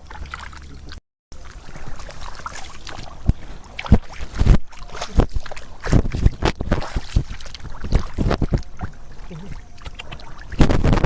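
Water splashing and sloshing in irregular strokes as hands work through shallow water, with a brief gap in the sound about a second in.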